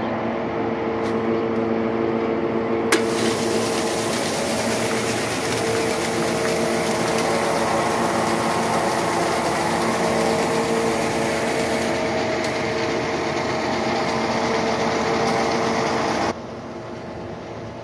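Electric grain auger running with a steady hum, feed grain hissing as it pours from the spout into a mixer wagon. A click about three seconds in; near the end the sound drops off suddenly to a quieter steady background.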